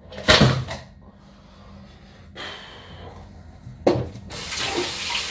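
Clatters and knocks of kitchen handling, the loudest just after the start and about four seconds in, then a tap is turned on and water runs steadily into the sink.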